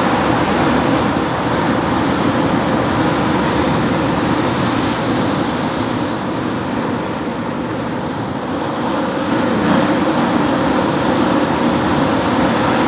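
Steady rush of ocean surf, swelling and easing slightly.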